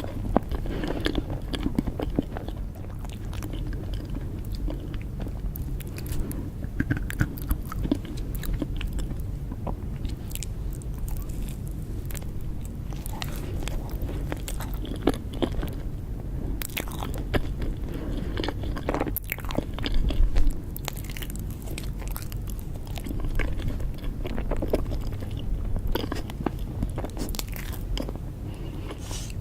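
Close-miked mouth sounds of someone eating cake: biting and chewing with irregular sharp, crisp clicks, over a steady low hum.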